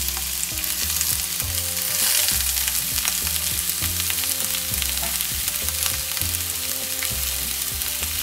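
Chopped green bell peppers sizzling and crackling in hot oil in a cast-iron skillet, just added to the pan. Background music with steady low notes plays under it.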